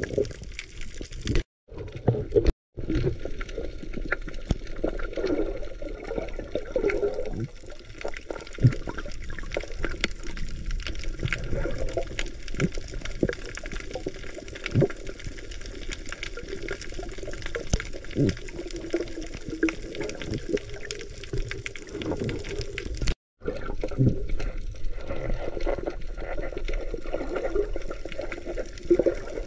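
Muffled water sound picked up by a camera underwater, with gurgling and many scattered short clicks. It drops out completely for a moment three times.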